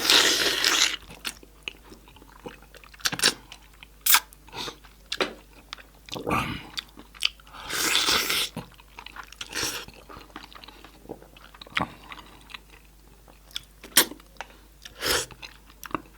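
Close-miked chewing and crunching of goat-head meat, with sharp crunches and bites at irregular intervals and a couple of longer noisy bursts, one at the start and one about halfway.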